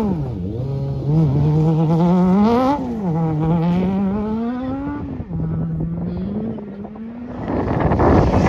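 Off-road rally car's engine under hard driving, its pitch dipping, climbing and dropping again as the driver lifts, accelerates and changes gear. Near the end the engine fades and a loud rushing noise takes over.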